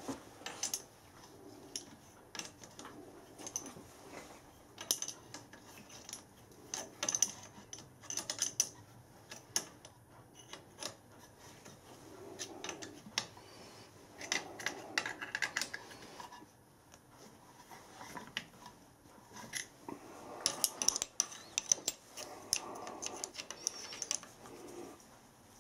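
Quiet, scattered metallic clicks, clinks and short scrapes of a hand tool working on a metal lathe's compound slide as its screws are nipped up tight.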